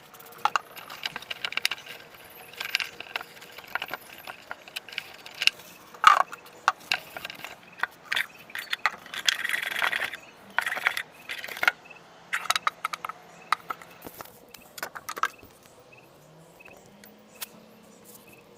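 Small hard parts being handled and set down, a rapid run of clinks, clicks and rattles like jangling keys, which stops about 15 seconds in.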